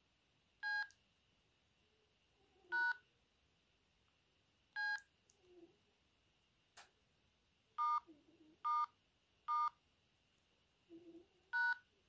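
Keypad tones of a Sendo S360 mobile phone: seven short two-note telephone-dialing beeps as keys are pressed one at a time, the pitch pair changing from key to key, with three coming in quick succession about eight seconds in. Faint knocks and one sharp click sound between the beeps.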